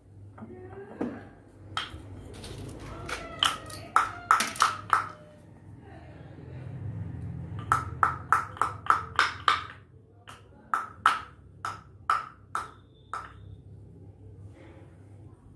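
Tablets being crushed in a wooden mortar with a pestle: three runs of quick, sharp knocks, several a second, each with a short ringing ping.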